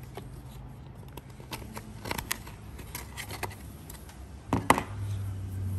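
Scattered light clicks and knocks of hands handling a plastic intake manifold and a sanding block on a cardboard-covered bench, the loudest knock about three-quarters of the way through. A low steady hum sits under it at the start and again near the end.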